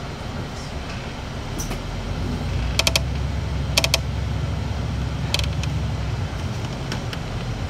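City bus on the move, heard from inside: a steady low engine and road rumble that grows louder about two and a half seconds in, with a few short clicking rattles from the bus body.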